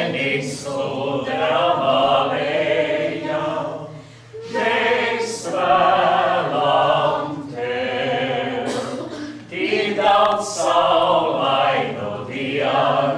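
A small group singing a slow congratulatory song in Latvian, unaccompanied, in long held phrases. There are short breaths between phrases about four and nine and a half seconds in.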